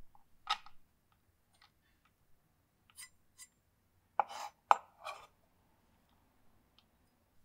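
Chef's knife blade scraping chopped garlic across a wooden cutting board and tapping against a small white dish: a few scattered clicks and short scrapes, the loudest ones about four to five seconds in.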